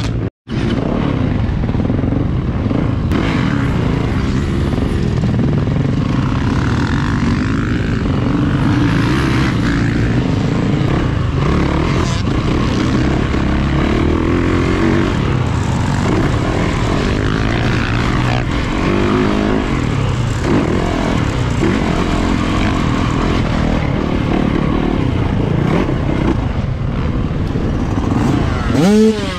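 Yamaha 250 two-stroke dirt bike engine running hard and revving up and down while riding a motocross track, heard from a camera on the handlebars, with a heavy rumble under it. A brief dropout just after the start, and a quick rise and fall in pitch near the end.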